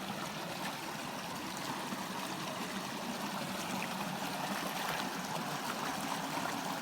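Steady rush of flowing water, like a small stream.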